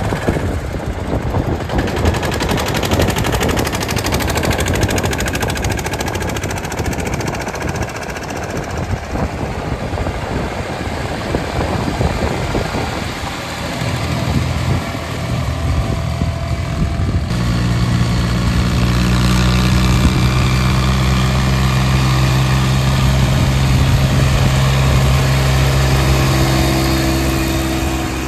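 Diesel engines of VST mini tractors running under load while towing loaded trolleys. The first half is a rapid, uneven chugging; a little past halfway it gives way to a steadier, louder engine hum that lasts almost to the end.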